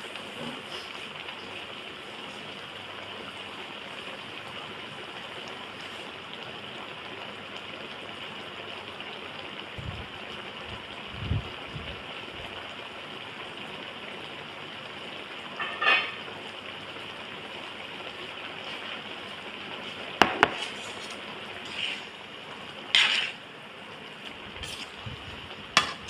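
Spaghetti and minced meat sizzling steadily in a wok. A couple of low dull knocks come around ten seconds in. In the second half come several sharp metal clinks of tongs against the pan, the last as the noodles are tossed.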